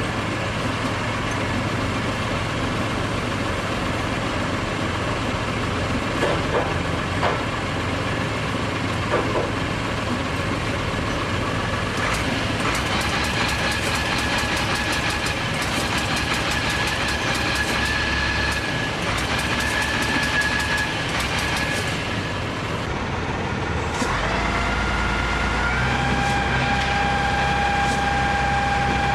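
Heavy construction machinery running steadily. There is a fast rattling clatter in the middle, and near the end an engine note rises and then holds.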